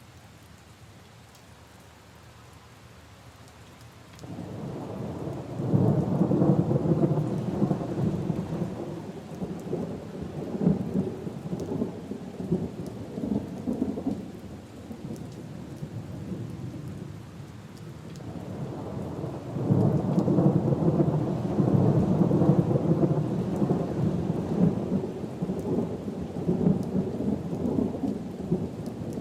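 Steady rain falling on leaves and puddles, with thunder rolling in about four seconds in: one long rumble that fades after about ten seconds, then a second long rumble starting near twenty seconds in.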